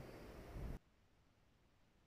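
Near silence: a faint steady hiss that cuts off suddenly less than a second in, leaving dead silence.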